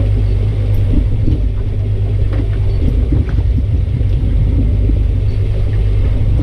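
Steady low rumble aboard a small motorboat at sea, the kind made by wind on the microphone and the boat's motor.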